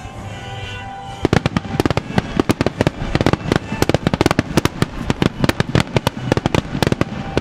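Starmine barrage of aerial firework shells bursting in rapid succession, several loud bangs a second, starting about a second in. Music accompanying the display plays underneath.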